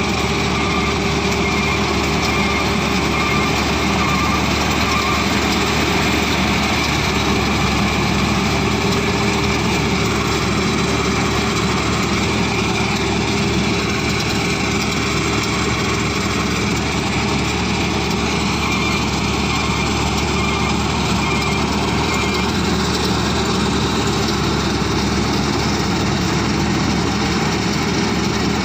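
Rice combine harvester running steadily: a continuous engine drone with a few steady whining tones over it, with no change in load.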